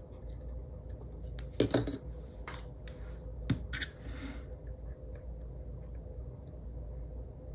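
Paper and sticker pieces being handled on a planner page: a few short crisp clicks and crinkles, the loudest about two seconds in and another cluster near the middle, over a faint steady hum.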